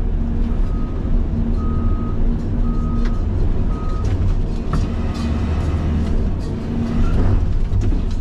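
CAT 336 excavator's diesel engine running steadily under load, heard from the cab, with an electronic warning beep repeating about once a second for the first half, four beeps in all, and a few sharp knocks of the machine working.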